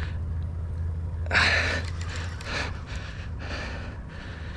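A man breathing hard in several heavy, gasping breaths while fighting a big fish on the line, with a low steady hum underneath that stops about halfway through.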